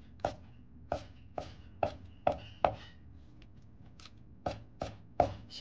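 Chinese cleaver chopping green onion into small rounds on a thick wooden chopping block: about a dozen short, sharp knocks at an uneven pace, roughly two a second.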